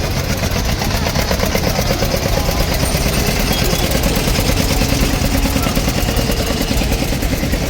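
Car engine running steadily with an even pulse.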